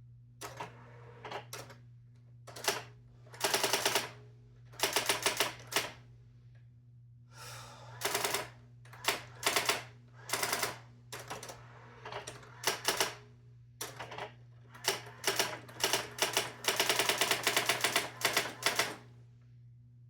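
Brother GX-6750 electronic daisy-wheel typewriter printing, its characters striking in quick rattling runs of a word or so at a time with short pauses between, the longest run near the end. A steady low hum runs underneath.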